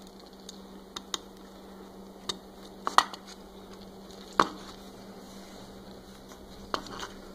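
Scattered sharp clicks and taps, the loudest about three and four and a half seconds in, from fingers handling an Arduino CNC Shield V3 board and pushing a limit switch's jumper-wire connector onto its header pins.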